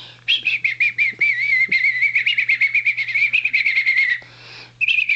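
A high, warbling, chirp-like trill in quick pulses, of the kind made to catch a puppy's attention. It breaks off about four seconds in and starts again near the end.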